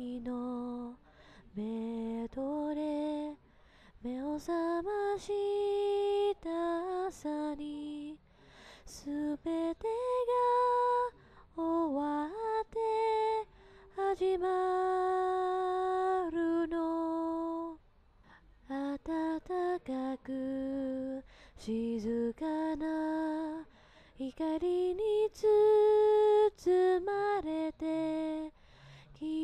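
A woman singing a slow, gentle melody, some notes held for a few seconds, with short pauses between phrases.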